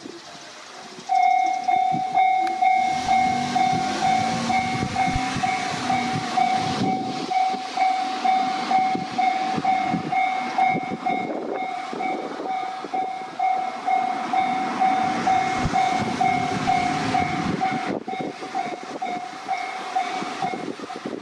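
Railway level-crossing warning bell starting about a second in and ringing in a steady, rapid repeat of one bright electronic tone, the signal that a train is approaching. Train running noise sounds underneath.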